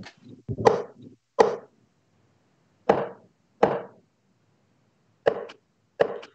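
Darts thudding into a bristle dartboard, three throws. Each thud comes twice, about 0.8 s apart, giving six sharp knocks in three pairs.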